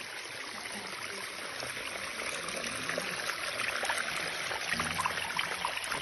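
Small stream trickling and splashing down a narrow rock channel, getting a little louder toward the end.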